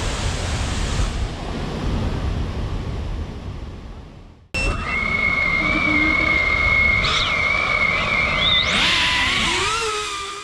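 Rushing roar of a waterfall that fades away, then after a sudden cut the steady high whine of a small quadcopter drone's motors, its pitch rising twice in the last few seconds as it climbs and manoeuvres.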